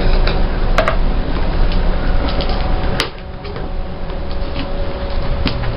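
A parcel being handled and opened: a few sharp clicks and knocks of packaging over a steady background hum.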